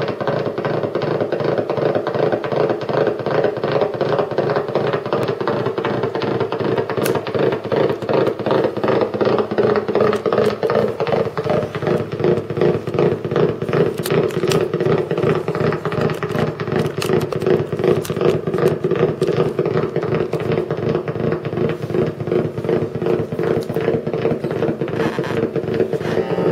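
Electric guitar played through effects pedals and an amplifier: a dense, sustained tone with a fast, even pulsing.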